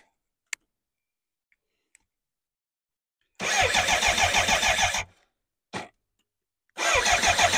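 BMW K100's starter motor cranking the inline-four engine in two bursts, about a second and a half and then about a second, with a rapid even pulse. The engine does not catch. The cranking is to check for spark at cylinder four's plug lead with a spark tester.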